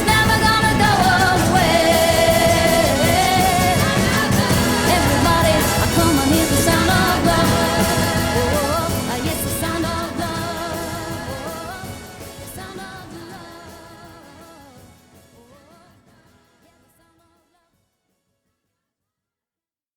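Closing bars of a pop song, with a full band and vocals, fading out gradually from about halfway through and going silent a few seconds before the end.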